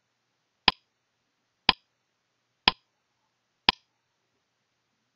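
Countdown timer sound effect: four sharp ticks, one each second.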